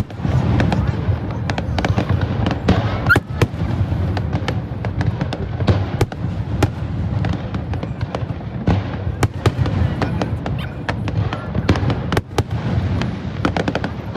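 Fireworks display: a rapid, irregular run of bangs and crackles over a continuous low rumble of bursts.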